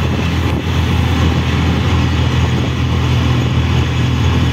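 Auto-rickshaw engine running under way, heard from inside the open cabin as a steady low drone with road and traffic noise around it.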